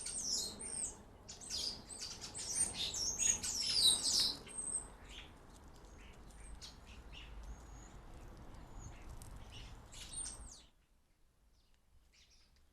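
Small garden birds chirping and twittering, busiest in the first few seconds and sparser after. Near the end the sound cuts off suddenly, leaving only a few faint chirps.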